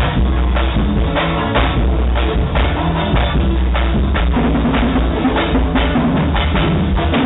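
Live band playing loudly on stage during a soundcheck: drum kit and deep bass keeping a steady beat of about two hits a second, with keyboard.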